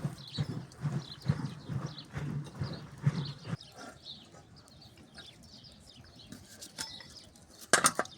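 Rhythmic low thuds, about two a second, that stop about three and a half seconds in, followed by faint high chirps and a single sharp loud knock near the end.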